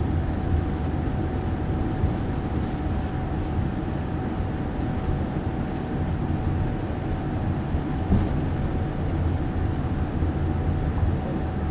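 Cabin noise of a Boeing 787-9 airliner taxiing: a steady low rumble from the idling jet engines and rolling wheels, with a faint steady tone above it.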